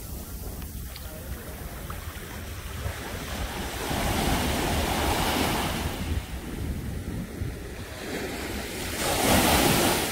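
Small waves washing over the shallows, swelling louder twice, about four seconds in and again near the end, over a steady low rumble of wind on the microphone.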